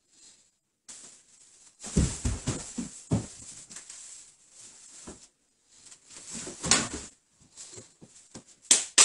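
A person being forced down onto a wooden dojo floor by an arm and wrist lock: scuffs and knocks of bodies and bare feet on the boards, mixed with strained vocal sounds. They come in irregular clusters, loudest about 6.5 s in and in a sharp burst near the end.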